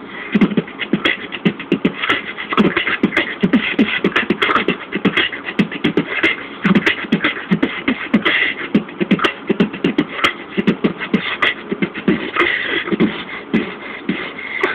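Mouth beatboxing: a fast, dense pattern of low thumps and sharp clicks, with a high tone sounding now and then.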